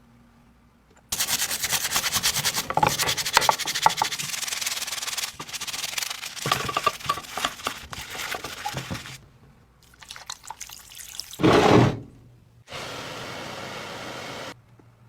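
Rubbing and scraping strokes against a surface in several bouts, then a short burst and a few seconds of steady hiss near the end.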